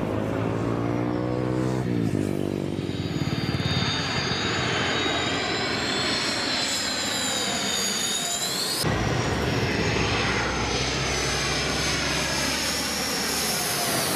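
Sukhoi Su-30MKM fighter's twin jet engines in afterburner, passing low overhead: a loud, steady jet noise with whining tones that slide up and down in pitch as it goes by. The sound cuts off suddenly and starts again about nine seconds in.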